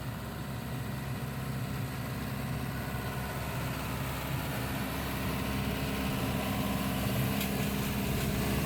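Tractor engine running steadily with the square baler, a low drone growing gradually louder as the rig comes closer.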